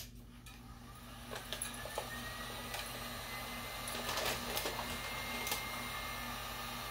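Electric heat gun switched on, its fan spinning up into a steady blowing hiss with a faint rising whine, used to heat-shrink plastic wrap around a dog bowl; a few light clicks and crackles come through.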